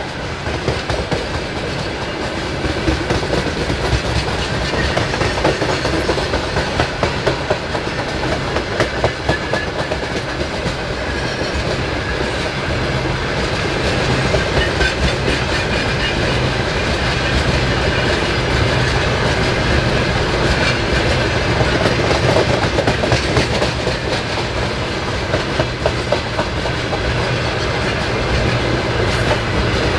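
Freight train of coal-laden open gondola wagons rolling past, with a steady rumble of wheels on rail and repeated clusters of clattering knocks as the wheel sets pass over rail joints.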